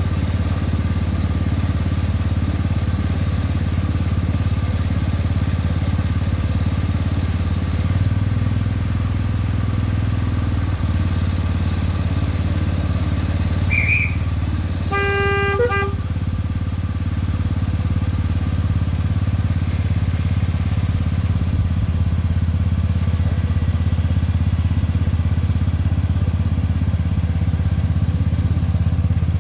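Engine of a Hymek-style miniature railway locomotive running steadily with a low drone while the train is under way. About halfway through comes a short horn blast of about a second.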